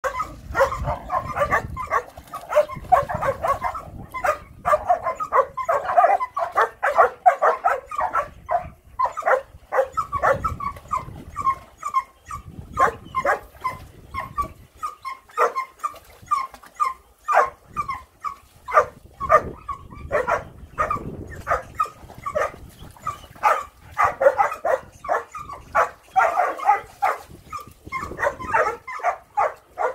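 Rough collie puppies yipping and barking over and over, many short high calls in quick succession, bunched most thickly near the start and near the end.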